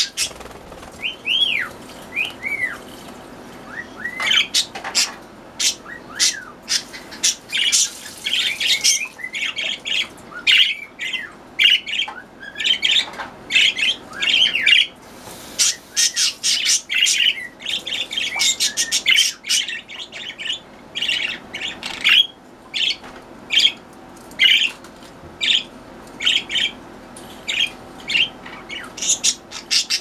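Pet budgerigars chattering in their cage: a dense, continuous run of short chirps and squawks, with a few rising-and-falling whistled calls in the first seconds.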